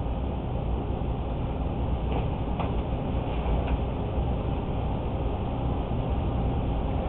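Steady low rumble of room background noise, with a few faint clicks about two to four seconds in.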